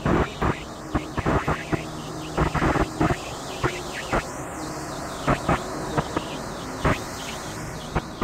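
A car driving on a highway, heard from inside the cabin as steady road noise, broken by frequent short, loud bursts of noise at irregular intervals.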